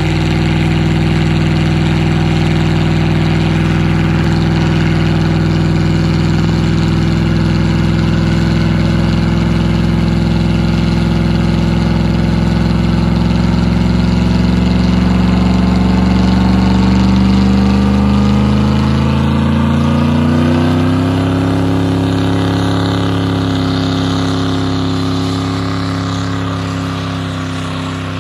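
Ford F-150's 4.6-litre V8 held at high revs in a one-wheel burnout: with an open differential, only the right rear tyre spins. The engine note is steady, then climbs in pitch over several seconds about halfway through and holds higher to the end.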